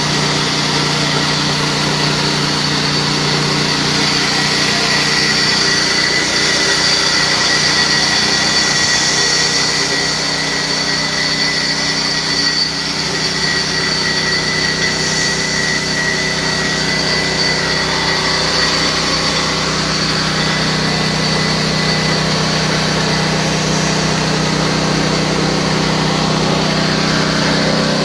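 Corn grinding mill driven by a 6.5 HP petrol engine, running steadily, with a steady high whine over the engine's drone.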